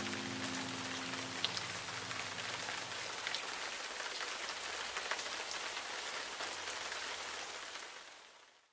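Steady rain falling, with scattered drops ticking, as the last guitar chord rings out in the first second; the rain fades out near the end.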